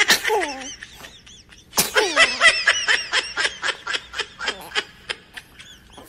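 A baby sneezing, a sharp burst at the start and another about two seconds in, followed by a run of quick high-pitched laughter that tails off.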